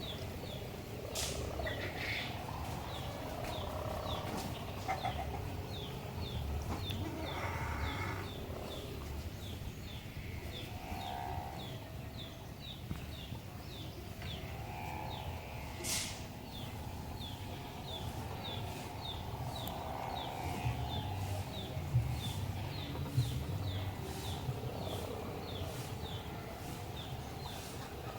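Bamboo kite hummer (sawangan) on a distant kite, droning faintly and swelling and fading with the wind, over a steady low wind rumble. Short high chirps repeat about twice a second throughout.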